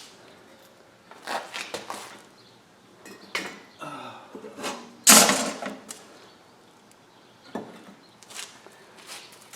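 Irregular metal clinks and knocks from handling the casting gear at the forge, getting ready to pour molten brass; the loudest knock comes about five seconds in.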